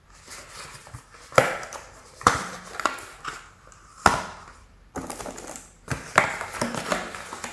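Cardboard carton of an eyeshadow palette being handled and opened: rustling and crackling as the tuck flap is pried and pulled, with a few sharp snaps of the card, the loudest about a second and a half, two seconds and four seconds in.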